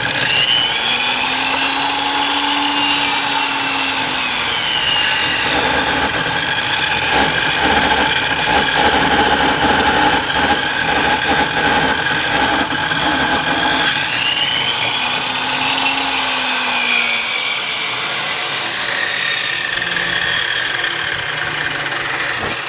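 Table saw running with a loud, abnormal rattling racket and its pitch rising and falling twice: the fault that makes the owner judge the saw worn out.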